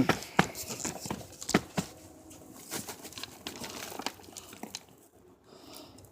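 Rustling and crackling as a sweet potato grow bag with its vines and soil is handled, with a few sharp clicks in the first two seconds and softer rustling after that dies down near the end.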